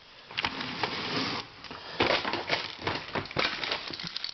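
Puzzles being handled and moved about: a brief rustle, then a run of irregular small clicks, knocks and clatter.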